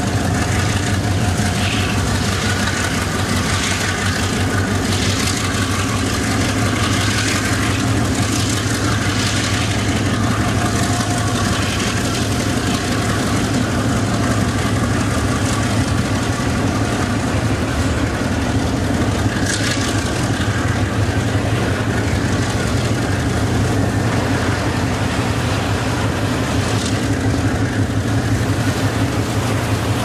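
Chinese diesel locomotive's engine running under load as it hauls a heavy freight train, a steady deep throbbing drone. A few short high-pitched rasps from the wheels and wagons come through at times.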